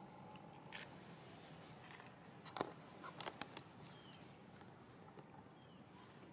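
Quiet, with a few faint scattered taps and rustles, the clearest a short cluster about two and a half to three and a half seconds in: long-tailed macaques shifting and stepping on dry leaves and dirt.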